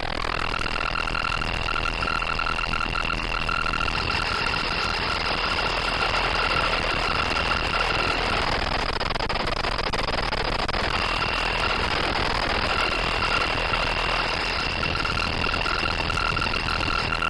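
Synthesized aircraft engine sound from a VCV Rack 2 modular synth patch: a steady rush of noise with a high whine and a lower pulsing tone above it. The whine drops out about halfway through and comes back a few seconds later.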